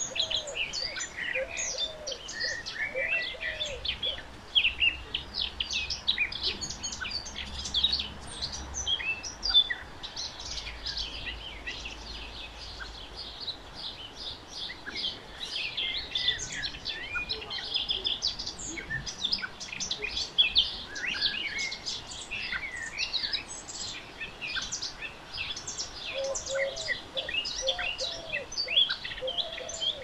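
Small songbirds chirping and twittering to each other: a dense, continuous run of short, high calls and trills.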